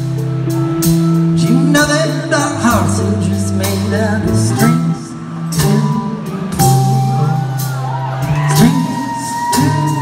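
Live rock band playing loudly: electric guitar, bass and drums with a man singing, heard from the audience.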